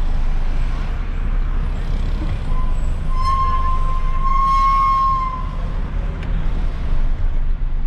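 Isuzu Giga concrete mixer truck's 14,250 cc diesel engine running as the truck drives, heard from inside the cab as a steady low rumble. A single steady high tone sounds over it for about three seconds in the middle.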